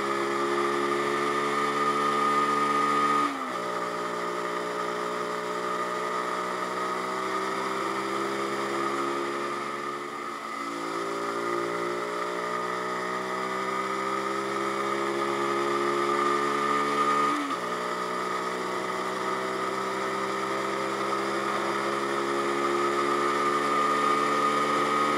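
Zontes G1X 125's single-cylinder engine under way, heard from the rider's seat. The revs climb steadily and drop sharply twice, about three seconds in and again about seventeen seconds in, as it shifts up. A brief easing of the revs comes about ten seconds in.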